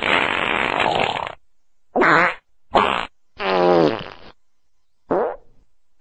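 A run of farts: a long airy one that stops about a second and a half in, then four short separate farts. The longest of these, near the middle, has a buzzy pitch that wavers, and the last one drops in pitch.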